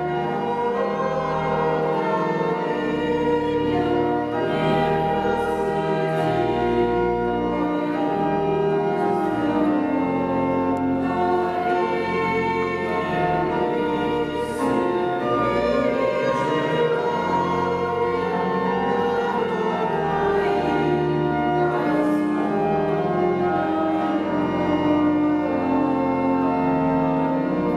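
Choral music: a choir singing slow, held chords, with sustained instrumental accompaniment.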